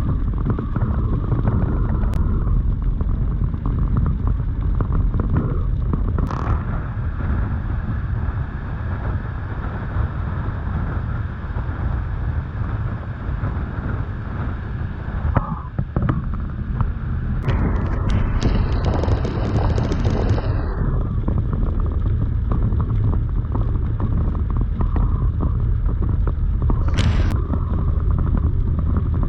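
Steady low rumble inside a truck cab driving through a thunderstorm: engine and road noise with wind buffeting. A few sharp knocks, and a brief high pulsing tone about two-thirds of the way through.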